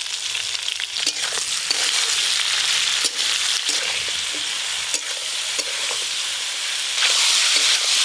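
Cut mixed vegetables sizzling as they are lightly fried in oil in an iron kadai, with a metal spatula scraping and clinking against the pan every second or so as they are stirred. The sizzle gets louder near the end.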